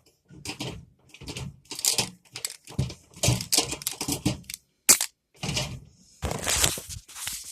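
Handling noise: irregular rattling and scraping, with a sharp click about five seconds in.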